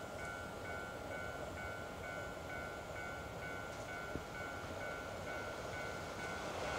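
Railway level-crossing warning bell ringing steadily, about two dings a second, over the faint rumble of an approaching freight train.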